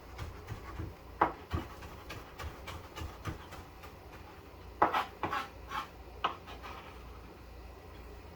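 Kitchen knife chopping fresh mint leaves on a cutting board: irregular taps, with a quicker run of louder taps about five to six seconds in.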